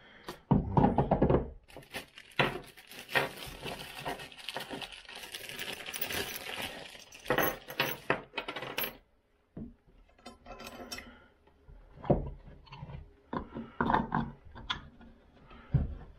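A plastic hardware bag rustles, and small metal nuts and washers clink as they are tipped out onto a wooden workbench. Scattered knocks come from the parts being handled.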